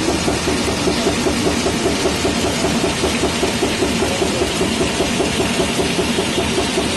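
Rotary printing press running at speed: a loud, steady, fast mechanical clatter repeating several times a second.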